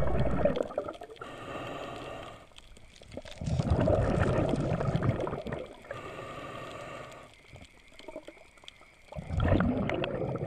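Scuba diver breathing through a regulator underwater: a hissing inhale followed by a loud bubbling exhale, twice over.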